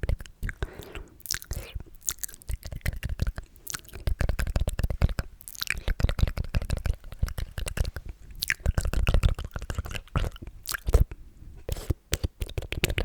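Sticky, wet mouth sounds made close to the microphone: dense, irregular clicks, smacks and lip pops with no words.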